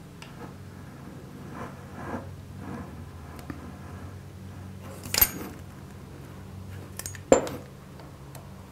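Metal clinks and a few sharp clicks from a Bayliss MK7 greenhouse vent opener being handled while its rod is pressed back into the piston, over a steady low hum.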